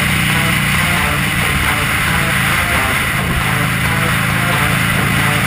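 Buell XB12R's air-cooled V-twin running steadily while riding at night, its pitch holding even, under a constant rush of wind and road noise.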